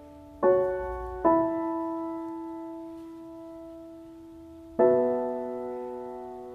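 Background piano music: a chord is struck about half a second in, another just after, and a third near the end, each ringing on and slowly fading.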